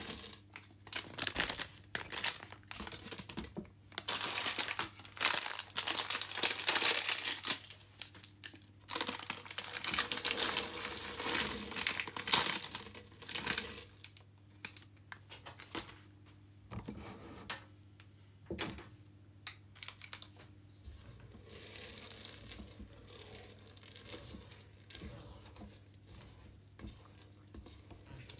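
A plastic packet of white chocolate chips crinkling in loud, repeated bursts as it is squeezed and shaken to pour the chips into cake batter in a steel mixing bowl. From about halfway it turns much quieter, with only scattered soft sounds as the batter is stirred.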